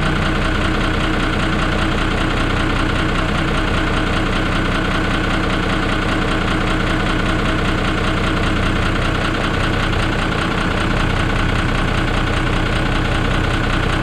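Isuzu FSR truck's diesel engine idling steadily, heard up close at the open engine bay.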